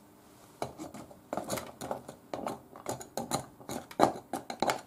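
Wooden spoon knocking and scraping against a glass blender jug as it pushes bread down into blended tomato. The irregular knocks start about half a second in and come several a second.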